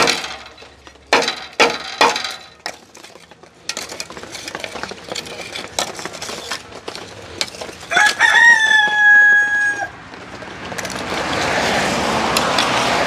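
A rooster crowing once about eight seconds in: a rising call held level for about two seconds. Before it come a few sharp knocks, and near the end a swelling rush of noise.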